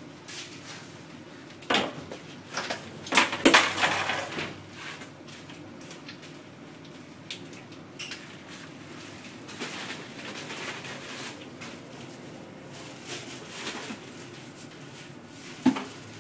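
A plastic scoop scraping and pouring a dry ingredient into an aluminium stockpot and knocking against the pot and plastic buckets: scattered clatters and knocks over a low background, loudest about two seconds in, between three and four seconds in, and once near the end.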